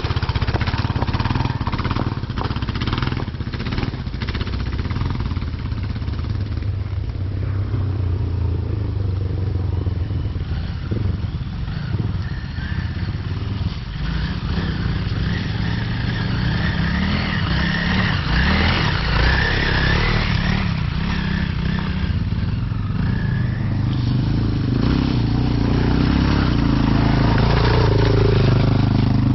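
Off-road motorcycle engines running, with a steady low engine note throughout. It grows louder near the end as a Suzuki dual-sport motorcycle rides up the dirt track and stops alongside.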